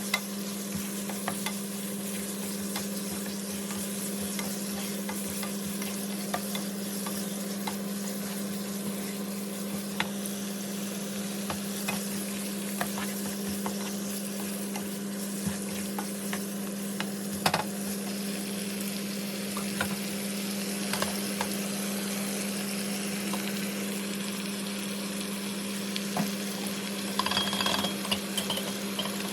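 Food sizzling as it fries in a pan, stirred with a utensil that clicks and scrapes against the pan now and then, more busily near the end. A steady low hum runs underneath.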